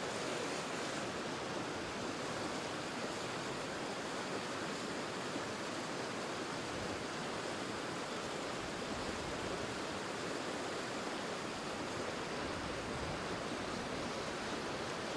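Low river water rushing steadily over a rocky run of small rapids.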